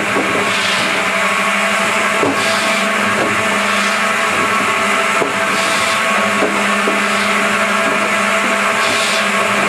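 DS-33 double-blade firewood saw running steadily with a constant hum, its two 700 mm circular blades cutting branch wood fed in by the clamping drum, with repeated rasping swells as the wood is cut. Sharp knocks now and then as cut pieces fall.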